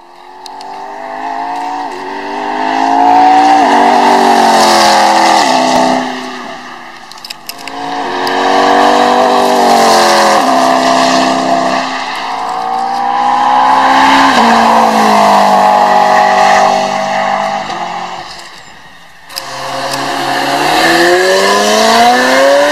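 High-performance car engines accelerating hard past a track straight, one after another, each rising in pitch and dropping back at every gear change. About nineteen seconds in the sound cuts to a red Ferrari's engine revving up as it accelerates away.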